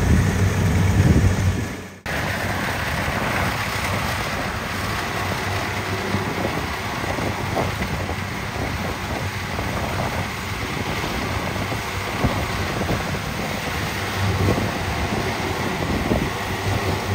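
Rice combine harvester running steadily, a continuous mechanical rush with some engine hum underneath; the sound dips out for a moment about two seconds in, then resumes unchanged.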